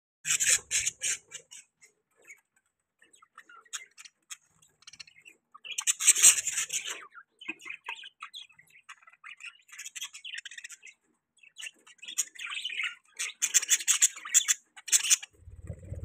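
Budgerigars chirping and squawking in rapid runs of short, harsh notes, loudest about six seconds in, with a low thump at the very end.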